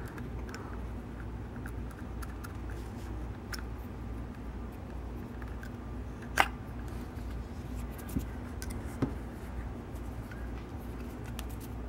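Small clicks and taps from needle-nose pliers and a craft knife worked at a leather holster's stitching thread, with one sharper click about six seconds in. A steady low hum lies underneath.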